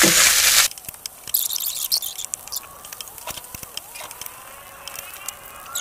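Rice frying loudly in a hot iron wok as a metal spatula stirs it. The sizzle cuts off abruptly under a second in, leaving quieter scraping and clicks of the spatula against the pan.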